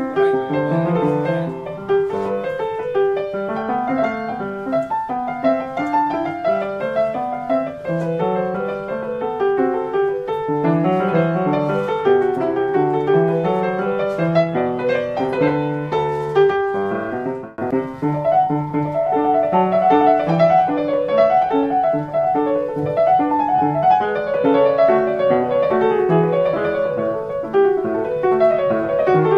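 1872 Ritmüller upright piano, recently repaired, being played: a continuous passage of chords under a moving melody. There is a brief break about seventeen seconds in, and the playing is a little louder after it.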